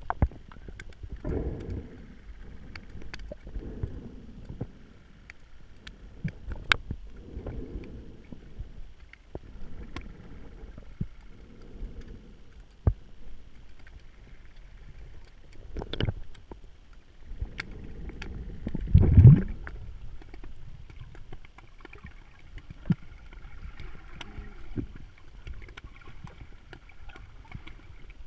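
Underwater sound picked up by a camera in its waterproof housing: muffled low swishes of moving water every few seconds, scattered sharp clicks, and one louder low rumble about two-thirds of the way through.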